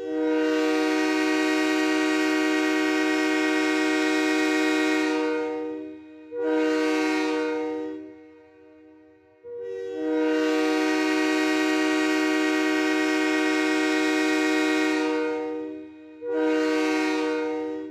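Train horn sounding a chord of several steady tones in a long-short pattern, twice: a blast of about six seconds, then a short blast of about a second and a half.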